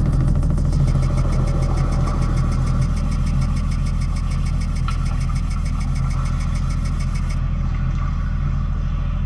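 Low, steady drone from a live experimental electronic sound piece, with a fast, even pulsing texture high above it that cuts off about seven seconds in.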